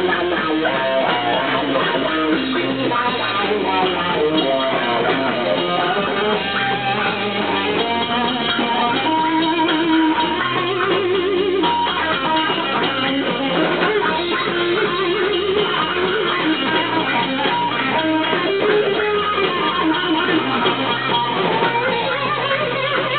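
Stoner-rock band playing live: electric guitar playing a riff over bass guitar and drums, loud and steady throughout.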